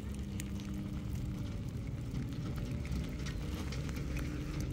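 Small open wood fire crackling with sparse light ticks and pops, over a steady low rumble with a faint hum.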